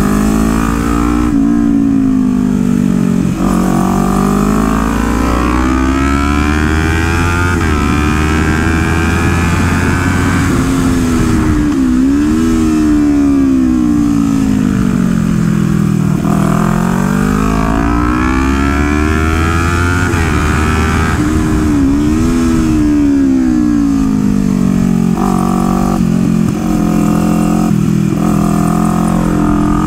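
Kawasaki Ninja 400's parallel-twin engine under hard riding. Its pitch climbs for several seconds as it accelerates, then falls away as it slows, over and over, with sudden drops and jumps at the gear changes. Near the end come short, quick bursts of throttle.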